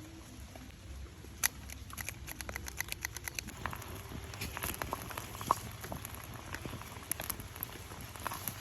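A rapid, irregular run of small sharp clicks and crackles, several a second, with a couple of louder snaps.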